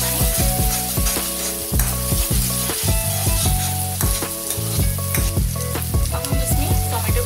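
Grated onion and whole spices frying in hot oil in a non-stick kadhai, sizzling steadily as the onion is browned, while a spatula stirs and scrapes through it.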